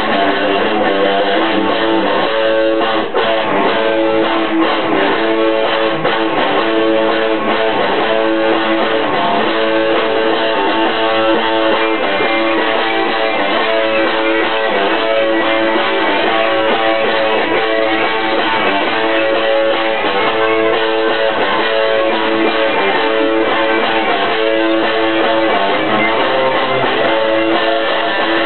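Two electric guitars playing a rock song together, loud and steady throughout.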